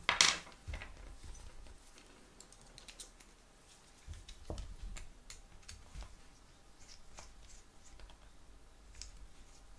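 Small metal tools and knife parts being handled on a wooden table: a sharp clatter right at the start, then scattered light clicks and a few soft knocks as a small Torx screwdriver works on a folding knife and bits and screws are set down.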